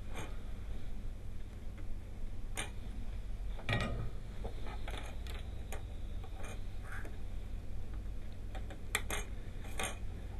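Scattered sharp clicks and taps, about a dozen, the strongest about four seconds in: small side cutters snipping the leads of freshly soldered diodes and the circuit board being handled. A low steady hum lies underneath.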